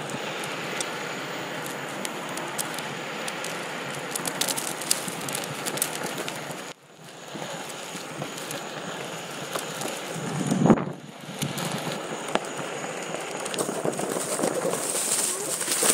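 Onewheel electric board's single tyre rolling over paved path, a steady rough rumble with rattles and crackles from the pavement. It dips briefly about seven seconds in, and there is a louder bump around eleven seconds.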